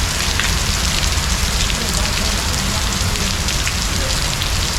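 Heavy pouring rain: a steady hiss with many sharp drop hits close to the microphone and a low rumble underneath.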